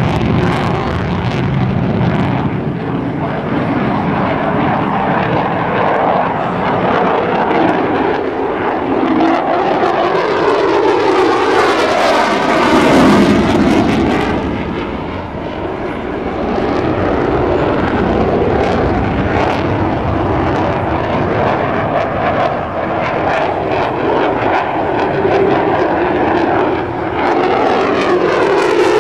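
F-16 Fighting Falcon jet engine noise, loud and continuous as the fighter flies its demonstration passes. The sound swells with a sweeping, phasing whoosh as the jet passes about halfway through, and does so again near the end.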